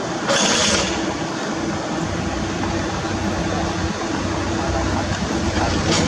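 Komatsu D31P crawler dozer's diesel engine running steadily as it tracks across loose soil, with a brief hiss near the start.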